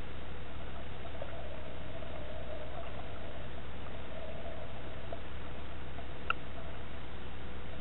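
Muffled underwater ambience picked up by a camera in water: a steady hiss with a faint steady hum and a few soft clicks, one sharper click about six seconds in.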